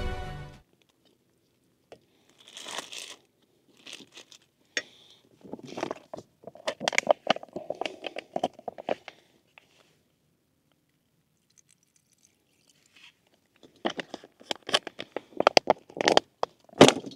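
Music cuts off about half a second in, followed by irregular close-up crinkling and crunching from something being handled, in two spells with a quiet gap between them; the second spell is denser and louder.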